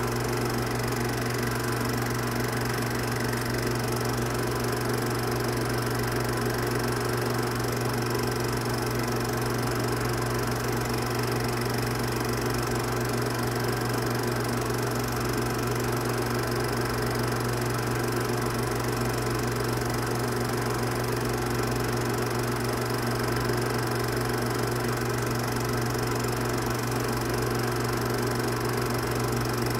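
Film projector running with a steady, unchanging hum.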